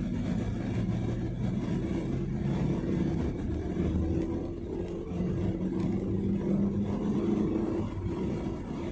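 Car engine and road noise heard from inside the cabin while driving. The engine note climbs about halfway through.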